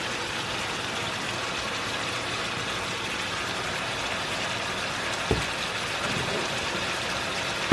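Chicken thighs frying in hot oil in a skillet, a steady sizzle, with a single knock about five seconds in.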